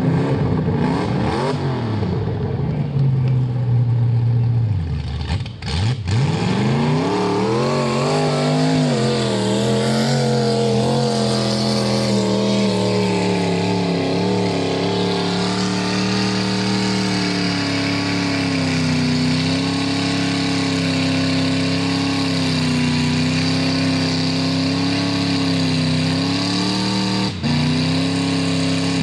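Mud-bog truck engine, loud, holding an even note, dropping away about five seconds in, then revving up and held at high, wavering revs for the rest.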